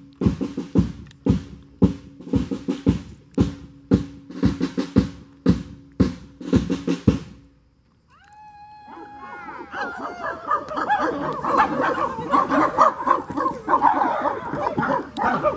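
A drum struck in a fast, uneven beat, about three strokes a second, stops suddenly about seven and a half seconds in. About a second later a group of voices starts sliding howls and yelps like a wolf pack, growing louder toward the end.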